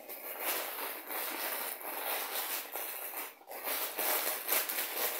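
Packaging rustling and crinkling as it is handled and unwrapped, with continuous, uneven noise.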